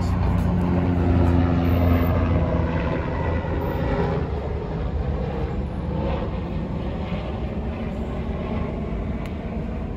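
Steady low drone of an engine running, strongest for the first two or three seconds and then easing off a little.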